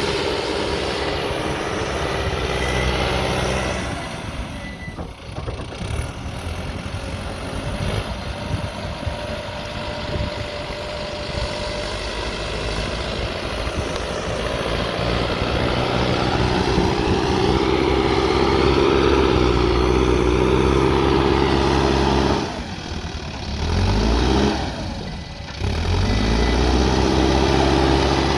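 Backhoe loader's diesel engine running under load, its revs rising and falling as it works. About three-quarters through, the engine drops briefly, then revs back up with a rising pitch.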